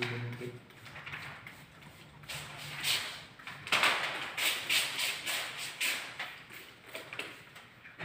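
Hand trigger spray bottle squirting water onto window glass in a quick series of short squirts, most of them in the middle of the stretch.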